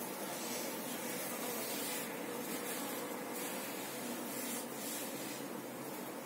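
Honeybees from an open hive humming steadily at a low level, with soft hissing rustles now and then as a brood frame is handled.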